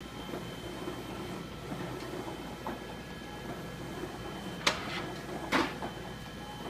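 Large-format inkjet printer running while printing a vinyl banner: a steady mechanical hum with a thin high whine. Two sharp clicks come about a second apart, a little past the middle.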